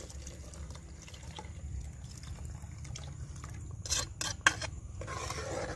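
Liquid poured from a bowl into a pot of soup, trickling and dripping as the bowl is emptied. About four seconds in come a few sharp taps in quick succession.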